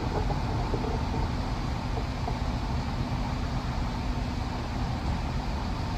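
Steady outdoor background noise: an even rushing haze with a low rumble and no distinct events.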